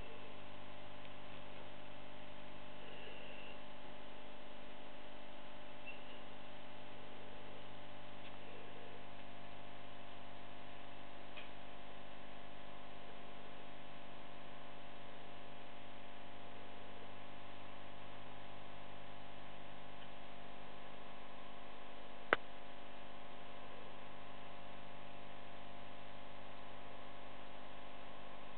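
Steady electrical hum made of several fixed tones, with a single sharp click about three-quarters of the way through.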